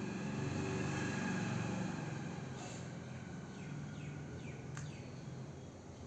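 Low steady rumble, loudest in the first two seconds and easing off after, with a few faint high descending chirps and one sharp click near the end.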